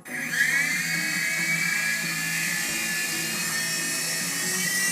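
Toy remote-control helicopter's small electric motor and rotors spinning up, the high whine rising in pitch over about half a second, then running steadily.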